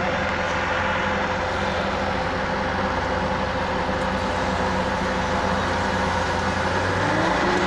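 Skid steer's diesel engine running steadily with the throttle up, heard from the operator's seat. Near the end its pitch shifts and it gets a little louder.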